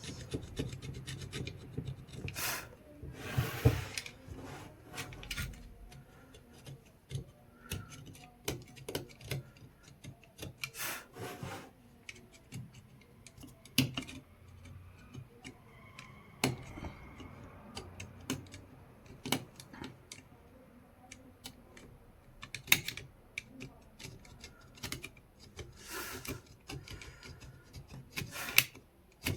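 Cutter blade scraping the terminal of a 12 V lead-acid battery in irregular rasping strokes with sharp clicks, baring the metal so solder will take.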